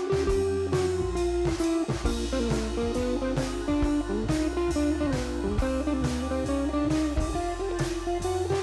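Background music: a blues-style electric guitar tune over a steady drum beat.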